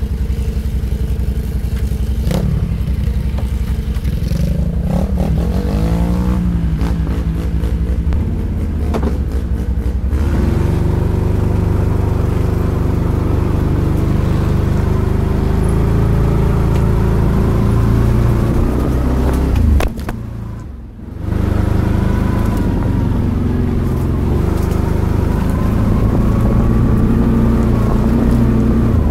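ATV engine running while being ridden, its pitch rising and falling with the throttle, with clicks and rattles over bumps in the first third. The engine sound briefly drops away about two-thirds of the way through.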